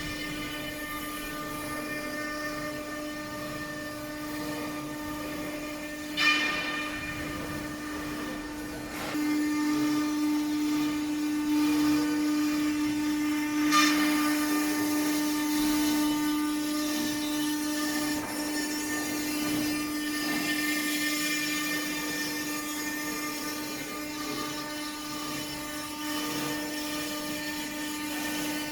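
Stone CNC engraving machine's spindle running with a steady high whine. It grows louder for a stretch in the middle, and two sharp knocks come about six and fourteen seconds in.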